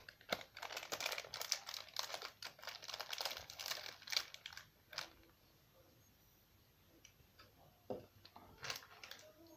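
Small plastic Haribo Tagada sweet packet crinkling and rustling in the hands for about five seconds, then a couple of short clicks near the end.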